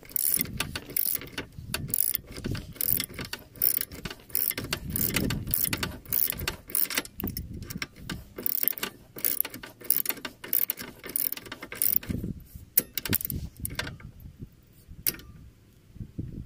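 Ratchet socket wrench clicking in quick back-and-forth strokes as a nut is run down and tightened. The clicking thins out to a few isolated clicks about three-quarters of the way through.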